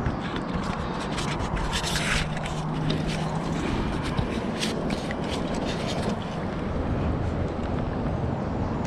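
Close handling noise: scraping and rustling from hands and clothing near the microphone, over a steady low rumble of moving water, while a chub is held in shallow river water beside a rubber landing net.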